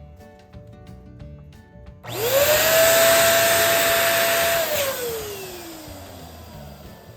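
Electric balloon pump switched on, its motor whine rising quickly to a steady pitch and blowing air for about two and a half seconds to inflate a balloon. It is then switched off and winds down with a falling whine.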